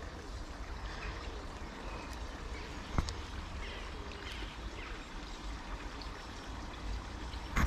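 Small river flowing, a steady trickling wash with a low rumble under it and faint chirps. There is a single sharp click about three seconds in.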